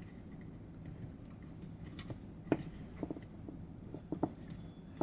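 Faint handling sounds of paracord being worked and pulled tight by hand, with a few light, sharp clicks and ticks.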